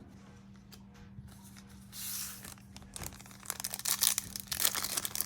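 Plastic trading-card booster pack wrapper being crinkled and torn open, a brief soft rustle about two seconds in followed by a growing run of sharp crackles from about three seconds in.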